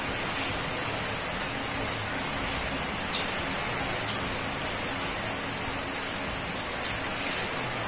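Steady rain falling, an even hiss throughout, with a few faint clinks of spoons and forks on plates.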